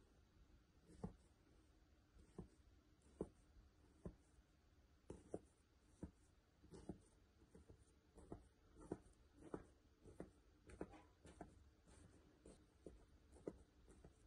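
Wooden skewer pricking holes in a moist baked cake: faint, irregular soft taps, about one or two a second.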